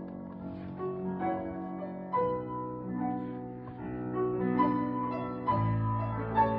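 Classical music played on piano, with a deep low note coming in near the end.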